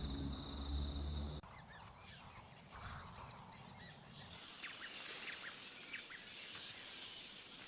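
Quiet outdoor ambience: scattered faint bird chirps over a steady high insect hiss. It follows a sharp change about a second and a half in, from a low rumble with a steady insect trill.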